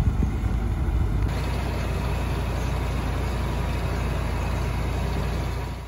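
John Deere tractor engine running steadily under way, heard from the operator's seat behind the hood and upright exhaust stack. The sound shifts slightly about a second in and fades out near the end.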